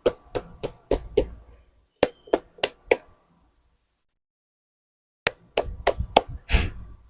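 Quick sharp taps and clicks of a tablet being handled on a hard work surface, in two bursts separated by a few seconds of silence.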